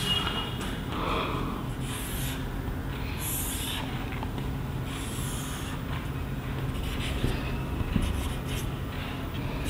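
Marker pen drawn across a whiteboard in several separate strokes, each a short scratchy squeak, as the lines of a triangle are drawn.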